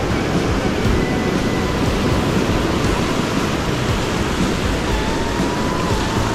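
Steady rush of ocean surf breaking on a beach.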